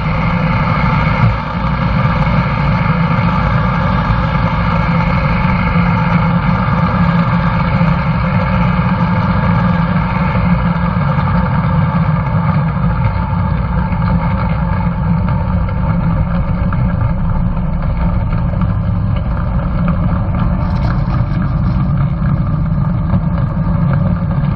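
Van's RV-7's piston engine and propeller running steadily at taxi power, heard from behind through a camera on the tail fin.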